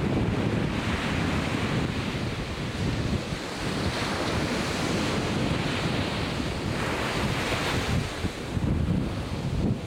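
Atlantic Ocean surf washing in, its hiss swelling every few seconds as waves break, with wind rumbling on the microphone.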